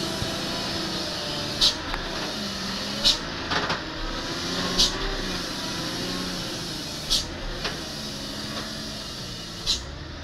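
Loaded sand truck's diesel engine running at low speed as it creeps past close by, its pitch wavering up and down. Five short, sharp hisses cut in at irregular gaps of one to two and a half seconds.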